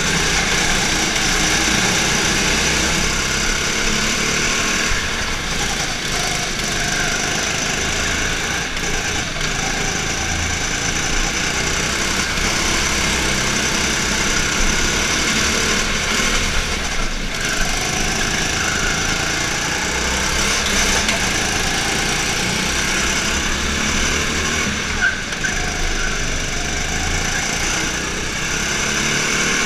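Go-kart engine running at racing speed, its revs rising and falling through the corners, heard from the driver's seat.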